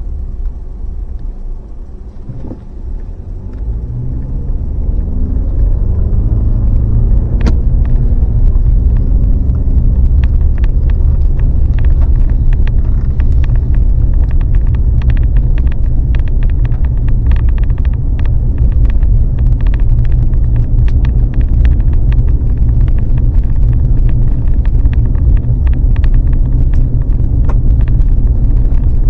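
Vehicle driving on a back road, heard from inside: the engine note rises as it speeds up over the first several seconds, then a steady low road rumble with frequent small clicks and rattles.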